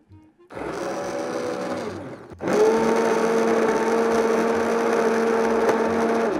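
Immersion blender puréeing a pot of corn soup. A quieter run of about two seconds stops briefly, then a louder steady run of about four seconds cuts off just before the end.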